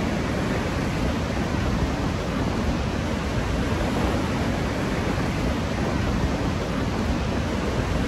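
Severe mountain-ridge wind, gusting to around 100 mph, buffeting the microphone: a steady rush of noise with no letup.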